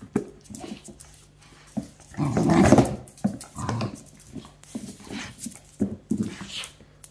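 Corgi making a series of short vocal sounds during rough play, the longest and loudest about two seconds in.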